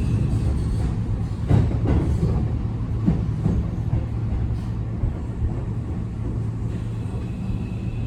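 Keio 8000 series train heard from inside the car while coasting with its PMSM traction motors idle: a steady low rumble of wheels on rail, with a couple of rail-joint clicks about a second and a half and three seconds in.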